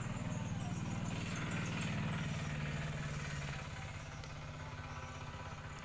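A small engine running steadily with a fast low throb, easing off a little after about three and a half seconds, with faint high chirping over it.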